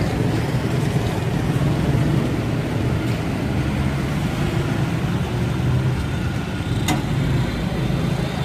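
Steady street traffic noise dominated by motorbike engines, a continuous low rumble, with a single sharp click late on.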